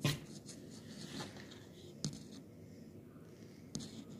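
Faint handling sounds of fingers working soft cloud slime and small plastic snowman pieces on a tabletop: about three short clicks or taps, near the start, about two seconds in and near the end.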